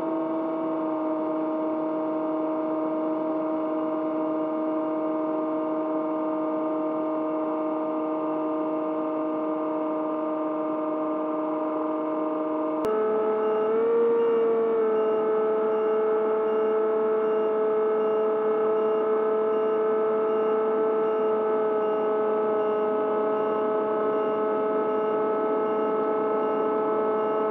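Electric motor and propeller of an AR Wing 900 flying wing droning steadily under power. About halfway through, the pitch steps up and gets slightly louder, then holds steady again.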